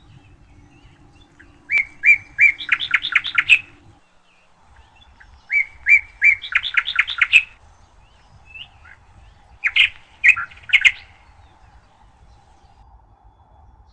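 A small songbird singing three short phrases about four seconds apart, each a few clear notes followed by a quick run of notes, over a faint steady hum.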